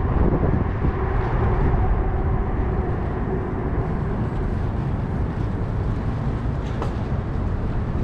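Wind buffeting the microphone in a steady low rumble while riding a bicycle.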